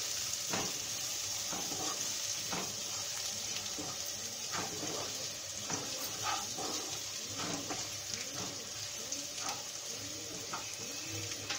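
Chopped onions, urad dal, cashews and almonds sizzling in oil in a nonstick kadai, with a wooden spatula stirring and scraping the pan about once a second.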